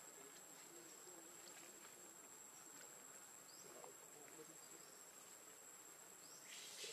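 Near silence: faint forest ambience with a steady high-pitched insect drone, and a short hiss near the end.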